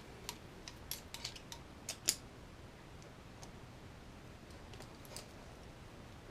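Light, sharp clicks and taps of small metal and plastic kit parts (a screw, washer and ball ends) being handled during hand assembly: a quick cluster in the first two seconds, then a few scattered clicks.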